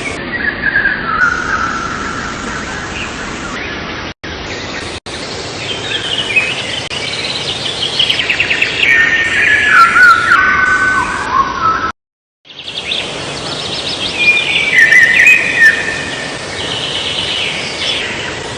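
Songbirds chirping and singing in phrases of quick notes stepping downward in pitch, over a steady hiss. The sound cuts out twice for an instant and once for about half a second about two-thirds of the way through.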